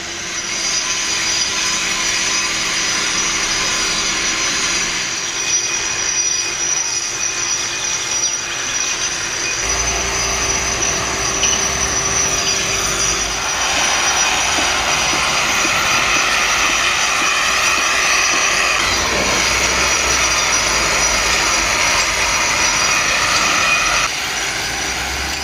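Construction machinery running steadily: a dense hiss with a high steady whine, joined by a low rumble about ten seconds in.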